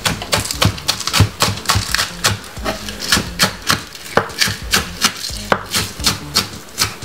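Knife chopping spring onion: a run of quick, sharp strikes, about three or four a second, somewhat irregular.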